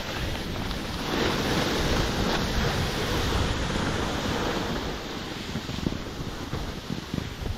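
Wind buffeting the microphone over a steady hiss of skis sliding on snow, getting louder about a second in.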